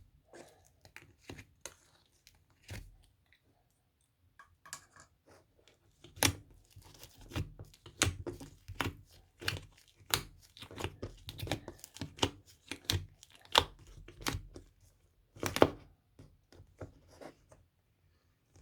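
Irregular clinks and scrapes of a spoon working in a cup of dalgona coffee, sparse at first and then busier for about ten seconds before tailing off.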